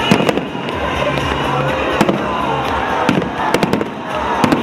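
Aerial firework shells bursting in a series of sharp bangs: two close together near the start, one about two seconds in, a quick cluster of several around three and a half seconds, and another near the end. Music and crowd voices run underneath.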